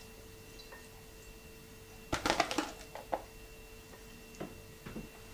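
Salad pieces sprinkled by hand onto a ceramic plate: a short cluster of small clicks and light knocks about two seconds in, then a few single ticks, over a faint steady hum.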